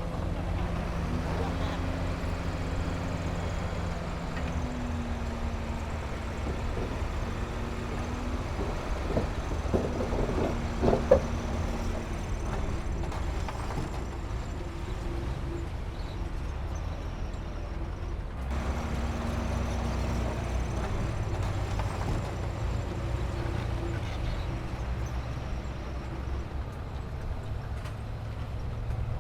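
Diesel engine of heavy earthmoving machinery running steadily, its pitch shifting now and then. A short clatter of knocks about ten to eleven seconds in is the loudest moment.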